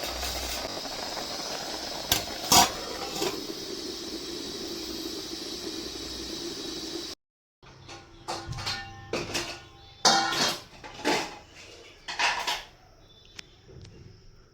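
A covered pot of pumpkin leaves boiling with a steady hiss, broken by three sharp metal clinks about two to three seconds in. After a sudden break halfway through, a run of clinks and knocks of dishes and utensils follows.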